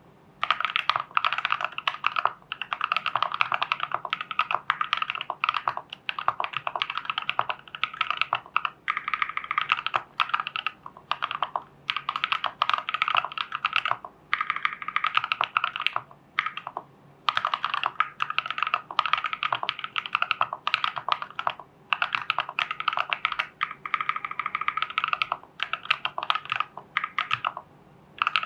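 Typing on a custom mechanical keyboard with KTT Strawberry switches in a plastic TU40 case, damped with case foam, PCB foam and a tape mod. It is a fast, steady run of keystrokes with brief pauses between bursts.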